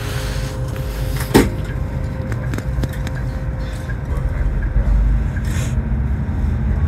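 Bus engine and road rumble heard from inside the cabin as the bus climbs a mountain road, with a sharp knock about a second and a half in and a brief hiss a little past halfway.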